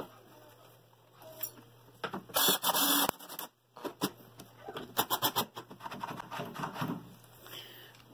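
Cordless drill-driver driving screws into a mortise lock's metal faceplate on a wooden door edge. It runs in short bursts, the loudest about two and a half seconds in and again around five seconds, with sharp metallic clicks and rattles from the lock hardware.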